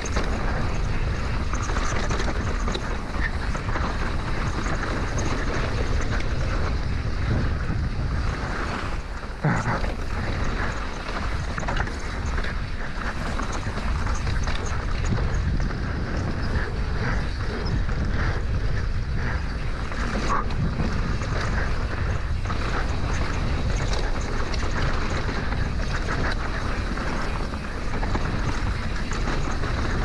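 Wind buffeting a helmet-mounted action-camera microphone as a Rocky Mountain full-suspension mountain bike rolls fast down a dry dirt singletrack, with steady tyre noise and chassis rattle over the rough ground. A couple of sharper knocks come through as the bike hits bumps, about nine and about twenty seconds in.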